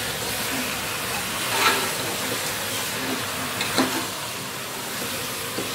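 Goat head pieces with onion and tomato sizzling in hot oil in a pressure cooker while a metal ladle stirs them. The sizzle is steady, with two short knocks or scrapes of the ladle, about one and a half and four seconds in.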